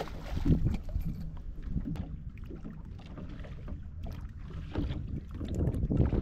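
Low, uneven rumble of a small boat sitting on the water, with wind on the microphone and water against the hull, and a few small knocks.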